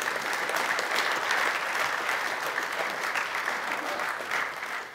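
Audience applauding, a dense patter of many hands clapping that dies away right at the end.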